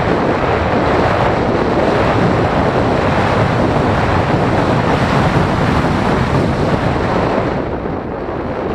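Rushing airflow over the microphone of a camera mounted on a Phoenix 1600 model glider in flight: steady wind noise with no motor tone, easing a little near the end.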